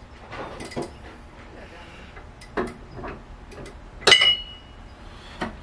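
Scattered light metallic clicks and knocks of tools and parts being handled in a car's engine bay, with one loud ringing metal clink about four seconds in.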